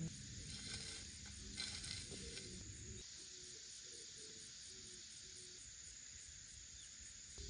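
Faint, steady high-pitched chirring of insects in the field, with a few soft rustles in the first two seconds.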